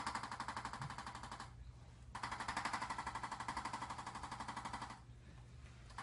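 Handheld electric percussion instrument, of the kind used in chiropractic adjusting, tapping rapidly in bursts that start and stop abruptly. One burst stops about a second and a half in, another runs from about two seconds to about five seconds in, and it starts again at the very end.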